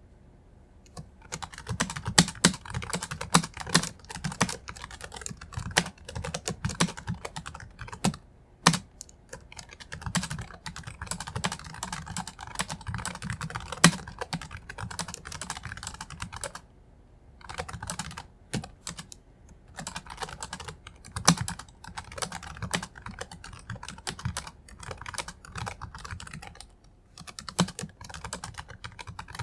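Typing on an IBM ThinkPad 770Z laptop keyboard: fast runs of key clicks with short pauses between them, and now and then a single louder keystroke.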